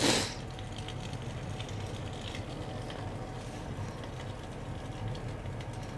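Steady low hum of a Turbro electric fireplace space heater running, with a short breathy puff of air right at the start.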